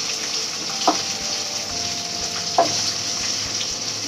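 Chopped onions frying in hot oil in a kadhai, a steady sizzle, while they are stirred with a spatula that knocks twice against the pan.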